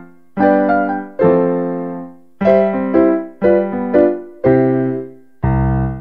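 Closing theme music on a piano-like keyboard: a slow run of struck chords, each ringing and fading before the next, ending on a deeper chord near the end.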